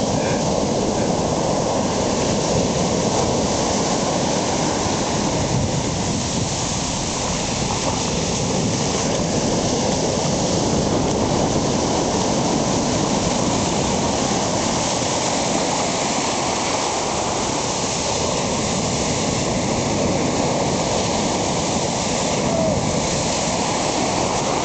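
Ocean surf breaking and washing up the beach, a steady rush of waves.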